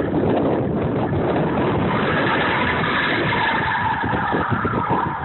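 A car driving on an icy parking lot, its engine revving, with a higher note coming in about two seconds in, under wind buffeting the microphone.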